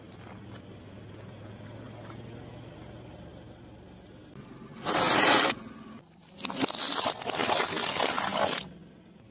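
A car tyre rolling over objects: a low steady rumble, then a filled rubber glove bursting under the tyre with a short loud rush of liquid about five seconds in. Near the end, about two seconds of crackling crunching as shiny Christmas ornament balls are crushed under the tyre.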